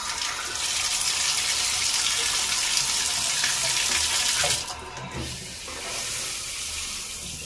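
Water gushing from a bathtub spout. About four and a half seconds in, the tub spout diverter is pulled up: the gush from the spout drops off and a quieter run of water carries on.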